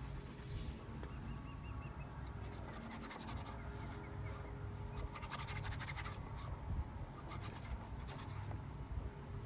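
Paintbrush scrubbing paint onto a painting panel in quick back-and-forth strokes, coming in several short spells, over a low steady rumble.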